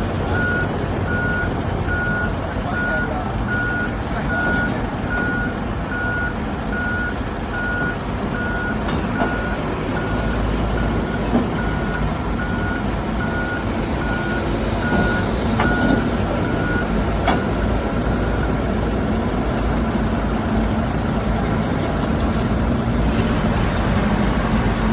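Heavy machinery's diesel engine running with its warning alarm beeping steadily, about one beep a second, until the beeps stop a little past halfway; a couple of sharp knocks sound around then.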